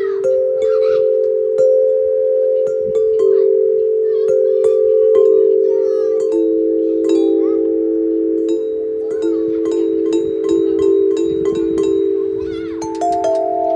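Tuned metal chime tubes of a free-standing outdoor chime instrument struck one after another with a mallet, each note ringing on long so that several overlap into a sustained chord; a couple of higher notes join near the end.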